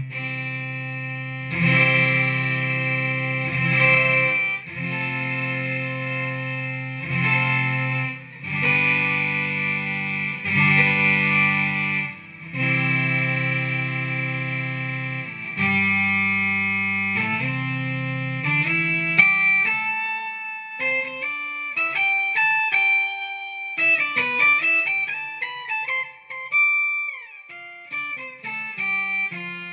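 Guitar played through a BOSS SY-200 synthesizer pedal, making a rich synth tone. Sustained chords change every second or two, then give way after about 18 seconds to quicker single notes with a sliding pitch near the end.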